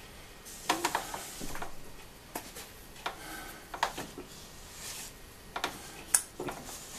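A spatula scraping and tapping around the inside of a stainless steel stand-mixer bowl, clearing biscuit dough from the sides. It comes in short, irregular scrapes and clicks, roughly one a second.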